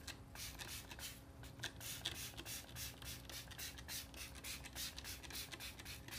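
Trigger spray bottle squirting degreaser onto a bike cassette: a quick, steady series of short hissing squirts, several a second.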